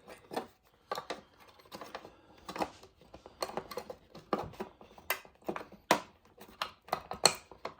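Irregular small clicks and taps of fridge dispenser parts being handled and fitted back together by hand, a dozen or more sharp knocks at uneven intervals.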